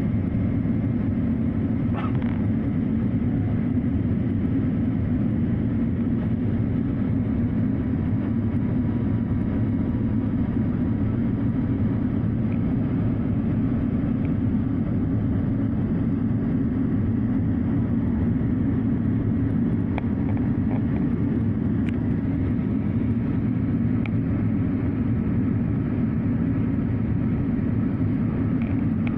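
Steady drone of an airliner's engines and airflow heard inside the cabin in flight, with a few faint ticks.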